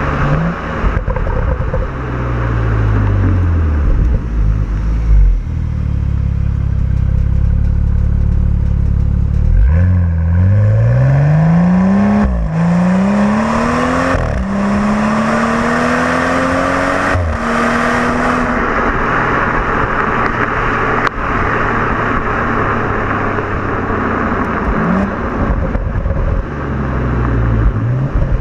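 A stock 2015 BMW M235i's turbocharged straight-six pulls hard, its note rising steeply from about ten seconds in. The 8-speed automatic upshifts three times, each shift cutting the rise short with a brief crack before it climbs again. The note drops back near the end to a steady cruise.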